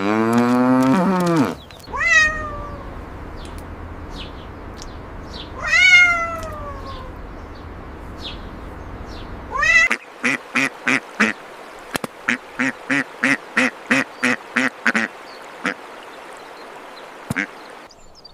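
A cow's moo ending at the start, then a domestic cat meowing twice, each meow falling in pitch. About ten seconds in, a duck quacks in a quick run of short quacks lasting about five seconds.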